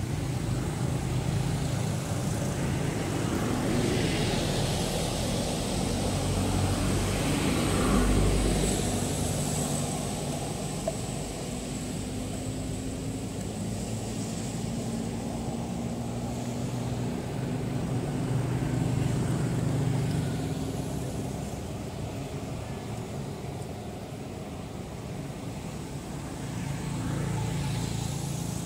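Steady low rumble of motor vehicles running at a distance, swelling a little about a third of the way in and again past the middle.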